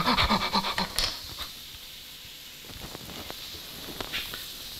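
A man's pained "ow" cries from handling a hot bun trail off at the start, then a single knock about a second in, followed by a faint steady hiss with a few light clicks.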